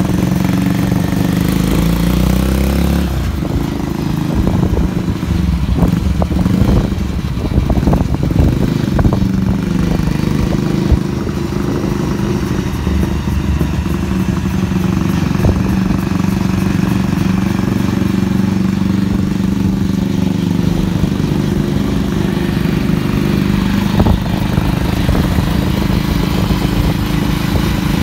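Custom cruiser motorcycle with twin exhausts riding at a steady cruising speed, its engine running with a steady deep exhaust note. A few short knocks come through around the middle.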